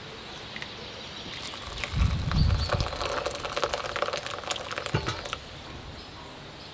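Water poured from a kettle into a small ceramic bowl of almonds, splashing and crackling for about four seconds with a couple of low knocks. It stops about five and a half seconds in.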